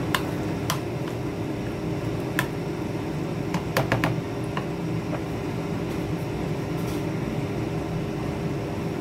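Metal spoon stirring corn kernels in batter, clicking lightly against a plastic mixing bowl several times in the first half, over a steady background hum.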